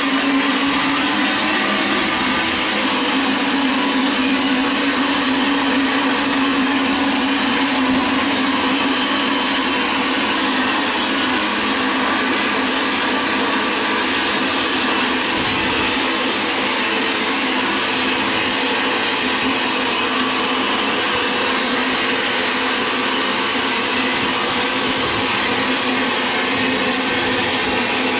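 Vapor blasting gun spraying a water-and-abrasive slurry driven by compressed air inside a blast cabinet, stripping corrosion from a vintage motorcycle carburetor's steel parts: a steady loud hiss with a low hum beneath it.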